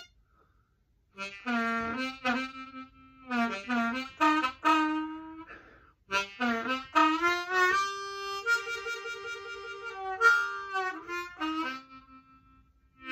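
Ten-hole diatonic harmonica played in short phrases after about a second of quiet, with notes bent so they slide in pitch and several-note chords. Near the middle a chord is held with a wavering pulse before the playing stops near the end.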